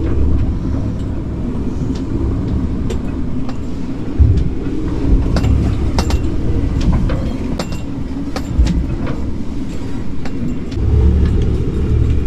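Inside a sailing yacht's cabin in a gale: a steady low rumble of wind and heavy sea against the hull, with scattered knocks and clicks and heavier thumps about four and eight and a half seconds in.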